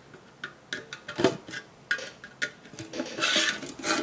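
Small metal carburetor parts clicking and clinking as they are handled, with one louder clink about a second in and a short scraping rustle a little after three seconds.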